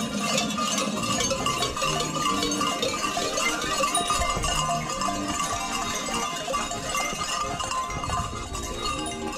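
Large bells worn on the belts of fur-costumed carnival figures clanking and jangling continuously as they run.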